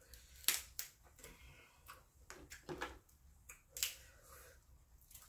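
King crab leg shell cracking and snapping as it is broken apart by hand, several sharp cracks with the loudest about half a second in and just before four seconds in.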